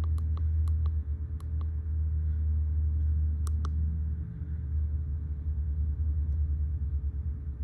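Quick presses on a handheld scan tool's keys: a run of short sharp clicks in the first second and a half and one more about three and a half seconds in, over a steady low rumble.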